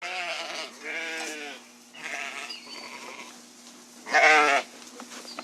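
Sheep bleating: four calls in quick succession, each a wavering 'baa', the last and loudest about four seconds in.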